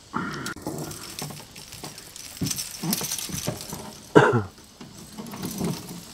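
Water splashing and rattling as a small walleye thrashes at the surface beside the canoe while it is being landed by hand, with a sharp louder splash about four seconds in.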